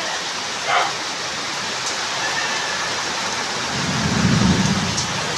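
Heavy rain pouring down in a storm with strong gusting wind, a steady hiss. A low rumble swells about four seconds in.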